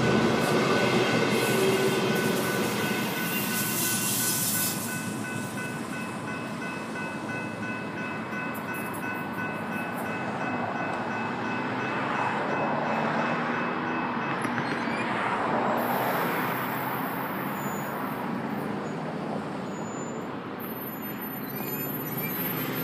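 Electric commuter train passing a grade crossing, loudest at first and dropping back after about five seconds as it clears. Steady high-pitched whining tones run over the passing noise and fade out one after another, the last about two-thirds of the way through.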